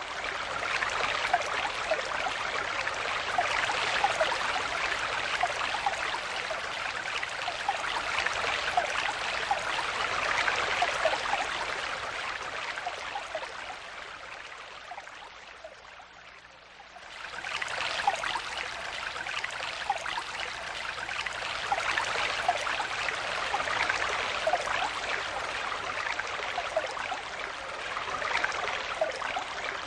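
Forest stream flowing, a steady rush of water dotted with small bubbling gurgles. About halfway through it fades down over a few seconds, then comes back up quickly.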